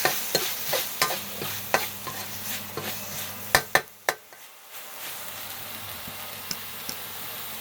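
Spatula stirring and scraping in a pan over low heat, with a light sizzle, while the chili paste is dry-roasted. Two sharp knocks of the spatula on the pan come about three and a half and four seconds in, after which only quieter sizzling is left.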